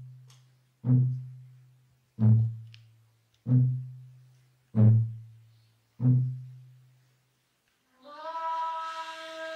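A deep drum struck slowly and evenly, five strokes about a second and a quarter apart, each ringing on a low note and dying away. Near the end a ney reed flute enters with a short upward slide into a long held, breathy note.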